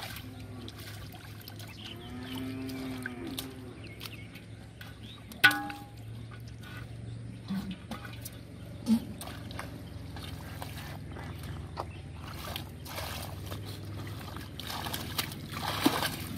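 Hands working in shallow muddy water: trickling, dribbling and small splashes with many small clicks. A little over five seconds in comes one sharp metallic clank with a short ring, the aluminium pot being struck.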